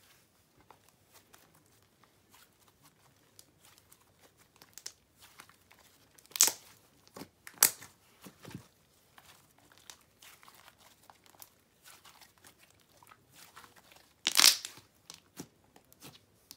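Thick white slime being kneaded and stretched by hand while green food colouring and scent are mixed in: faint sticky crackling throughout, with a few louder snaps and pops, two about six and seven seconds in and the loudest near the end.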